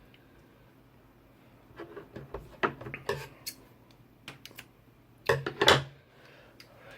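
A hand tool snipping and clicking as it cuts away the filler inside a Cat5 cable: a quick run of sharp clicks a couple of seconds in, a few small ticks, then two louder snaps near the end.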